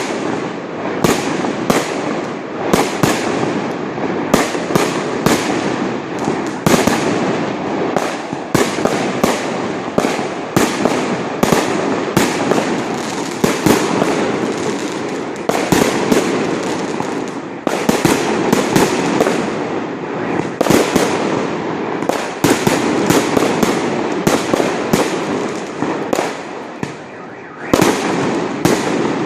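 Fireworks going off continuously: a dense, irregular barrage of sharp bangs, several a second, over a steady crackle of firecrackers.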